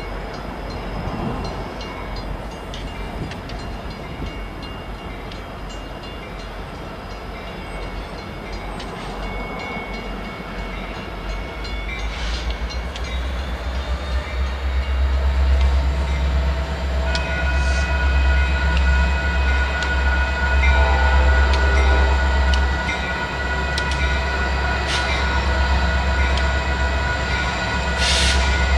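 Union Pacific GP60 and SD60M diesel locomotives passing at the head of a freight of autorack cars, their engine rumble growing loud about halfway through as they go by. From just past the middle, several steady high tones ring on over the passing train.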